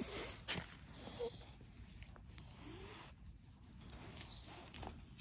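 A dog whimpering in a few short, soft whines, one of them a high wavering squeak about four seconds in, with rustling and a few faint knocks around it.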